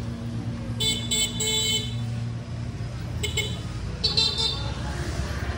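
Motor scooter horns beeping in short bursts, a quick run of three beeps about a second in and a few more short beeps in the second half, over the steady low hum of a motorbike engine running.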